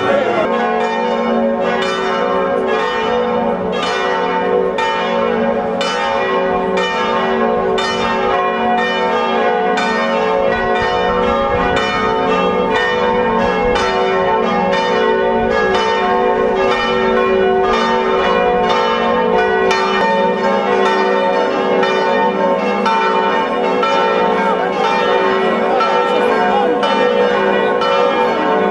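Church bells pealing, with overlapping strikes a little more than once a second and their long ringing tones blending together.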